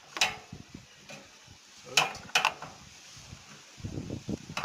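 Metal hand tool working the screws of a petrol generator's air filter housing as they are undone: a few sharp clicks, then a quicker rattling near the end.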